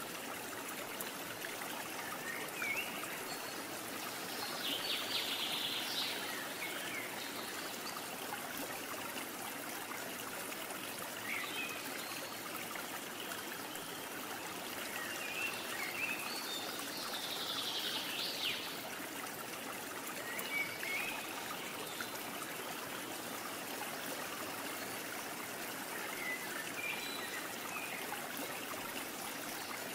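Steady rushing noise of flowing water, like a stream, with a few short high chirps now and then.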